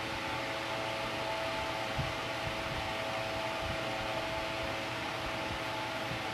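Steady fan-like whir and hiss with a faint hum running under it. One light knock about two seconds in.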